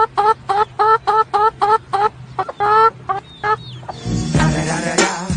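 A chicken clucking in rapid short calls, about four a second, while it is stroked, with one longer call about two and a half seconds in. The calls stop near 3.5 s, and music with voices cuts in for the last second or so.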